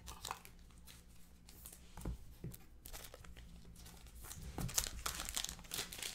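Foil trading-card pack wrappers crinkling and tearing as packs are opened and cards are handled, in scattered rustles that get busier about four seconds in.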